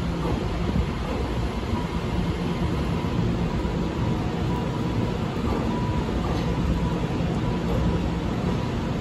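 Taiwan Railway EMU3000 New Tze-Chiang electric train pulling out of the station, its cars rolling past with a steady running noise.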